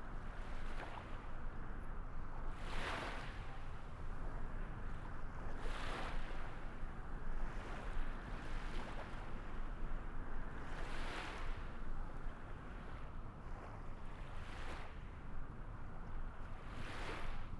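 Waves washing in: a steady low rush of water that swells into a brighter hiss every few seconds.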